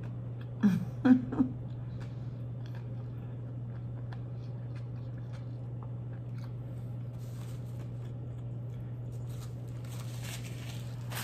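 Close-up eating mouth sounds: fingers being licked, with small clicks and smacks of the lips and tongue. About a second in come three short voiced sounds from the mouth, the loudest thing here, all over a steady low hum.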